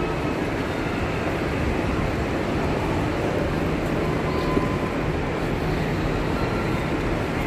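Busy railway station ambience under a large roofed train shed: a steady low rumble with the general hubbub of passengers moving about.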